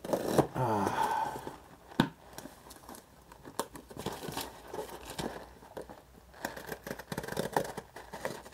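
Utility knife cutting and scraping along packing tape and cardboard on a parcel, with sharp clicks and tape tearing as the box is opened.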